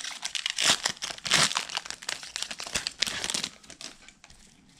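Shiny foil wrapper of a trading-card pack crinkling and tearing as it is pulled open by hand and the cards are slid out, in several irregular rustling bursts over the first three and a half seconds.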